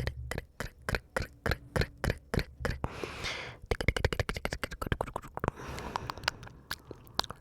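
Close-miked ASMR mouth sounds: rapid wet clicks and smacks of tongue and lips, several a second, with a short breathy hiss about three seconds in.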